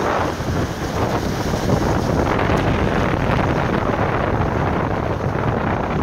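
Strong wind gusting over the microphone, a dense, unbroken rush that swells and eases with the gusts.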